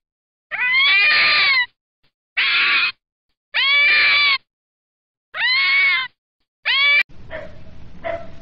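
Fennec fox giving five high, whining calls, each about half a second to a second long, some rising and falling in pitch, with silent gaps between. About seven seconds in the calls stop abruptly and a much quieter, hissy recording takes over.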